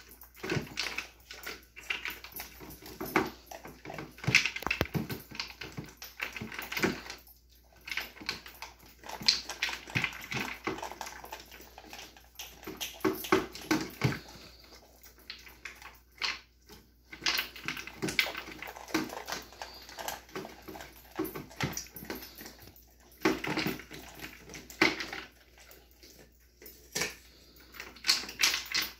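A dog eating from a slow feeder bowl: irregular clicks and clatter of food and bowl, with chewing, going on throughout with brief pauses.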